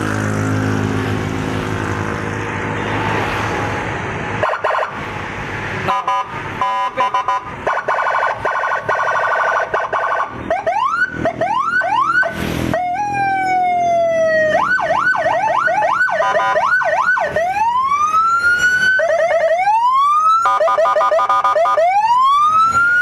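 Custom Senken police-escort siren being tested, very loud, cycling through its tones: a fast pulsing warble, quick rising yelps, a falling note and slow rising wails. A short blast sounds about halfway through. The siren starts after about four seconds of steady noise.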